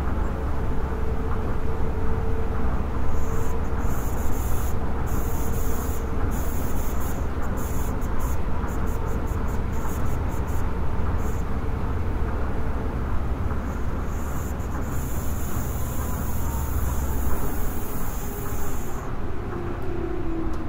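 Tokyo Monorail 10000 series car running, heard from inside the car: a steady low rumble with a faint motor tone. A high hiss switches on and off through the middle, and a tone falls in pitch near the end.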